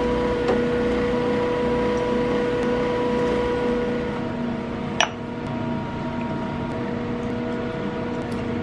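Steady electric hum of a running kitchen appliance, several held tones over a low rumble. The hum eases slightly about four seconds in, and a single sharp click comes a second later.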